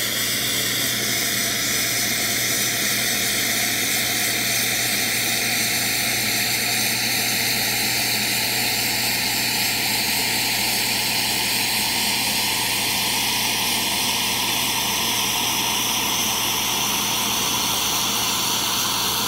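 Bezzera Strega espresso machine's boiler being drained through the open steam wand into a steel pitcher: a steady hiss of hot water and steam jetting out, with the machine's pump humming underneath.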